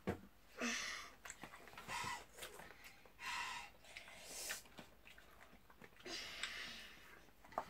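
Noisy mouth sounds of children eating very spicy noodles: about five short hissing breaths, roughly a second apart, with chewing in between, as they suffer the heat.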